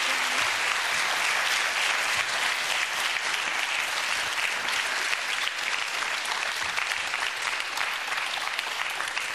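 Studio audience applauding: steady, dense clapping that eases slightly toward the end.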